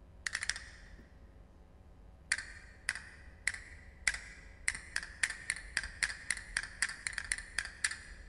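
Sharp wooden knocks with a short ringing tone, like a wood block. A quick cluster comes first, then single knocks about every half second, quickening into a steady run of about four a second.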